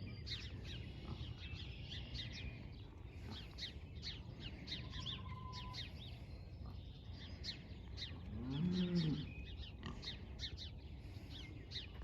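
Faint outdoor animal chorus of many short, high chirps repeating throughout, with a single low, drawn-out moo-like call about two-thirds of the way through.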